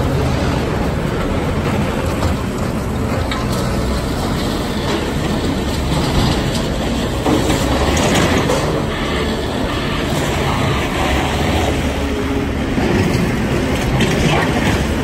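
Diesel construction machinery running in a steady heavy rumble with metallic clanking: a skid-steer loader working close by, and a dump truck rolling past near the end.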